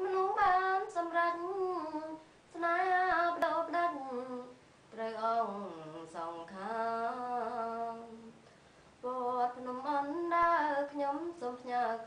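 A woman singing solo with no accompaniment, in long held phrases that slide in pitch, broken by short pauses between phrases.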